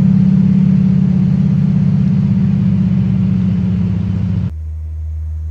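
Piston engine and propeller of a small propeller plane droning steadily, as heard from the cockpit. It cuts off abruptly about four and a half seconds in, giving way to a quieter, lower steady hum.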